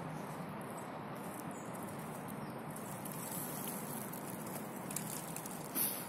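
Eurasian red squirrel husking sunflower seeds: faint small crackles of shells over a steady hiss. A sudden bump comes near the end, as the squirrel jumps up at the camera.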